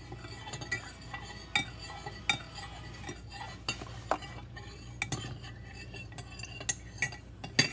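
Stirring gelatin mix into boiling water in a bowl: a utensil clinks irregularly against the bowl while the powder dissolves.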